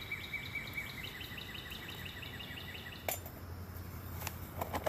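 Birds giving rapid chirping trills, two overlapping series of short high notes, about eight a second, that stop about three seconds in. A sharp click follows, and a low steady hum grows near the end.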